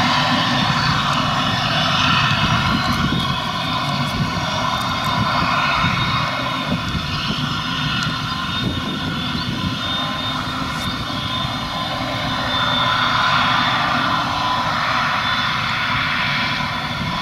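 Claas Jaguar 950 self-propelled forage harvester working under load, chopping grass and blowing it into a trailer running alongside: a loud, steady engine and drivetrain drone with a high whine over it.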